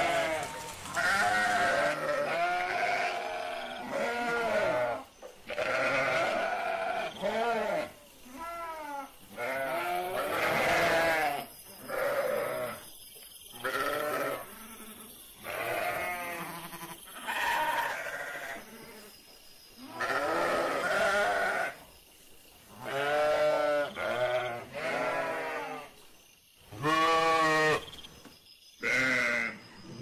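Sheep bleating over and over: a string of wavering baas, each a second or two long, with short breaks between them.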